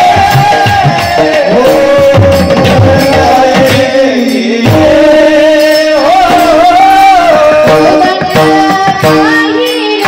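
Two women singing a Marathi devotional song in long, ornamented held notes, over a sustained melodic accompaniment, with hand-drum strokes in the first few seconds.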